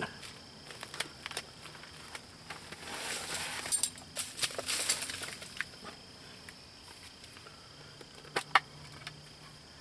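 Hand-sewing a ripped, worn-out garment: fabric rustling and thread being drawn through the cloth in a stretch of rustling a few seconds in, with scattered sharp clicks, two close together near the end.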